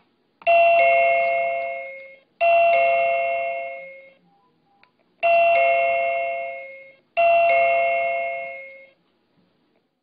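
Byron B305 plug-in wireless door chime ringing a two-note ding-dong four times, in two pairs, each ding-dong fading away over about a second and a half. A button click comes just before the first pair. The second pair is the chime signalling that it has paired with the bell push.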